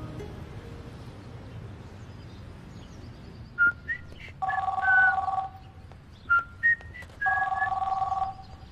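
Landline telephone ringing twice, each ring a steady two-tone trill about a second long, then answered. Short high chirps sound between the rings.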